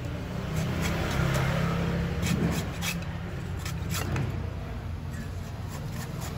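A cleaver chopping the husk of a young green coconut on a wooden block: a few short, sharp knocks between about two and four seconds in. Under them runs a steady low rumble, like traffic or an engine.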